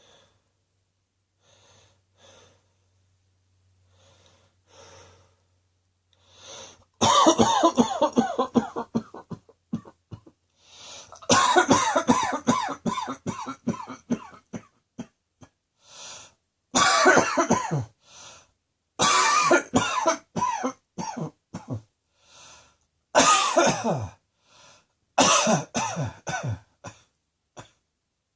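A person coughing in repeated fits. Faint breaths come first, then from about seven seconds in six bouts of rapid coughs, each a second or two long, with short pauses for breath between.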